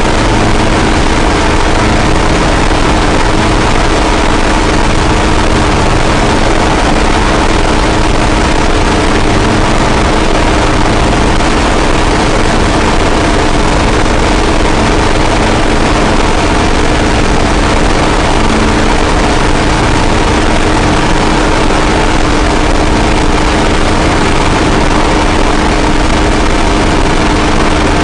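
Harsh noise drone music: a loud, unbroken wall of distorted noise over a steady low drone, unchanging throughout.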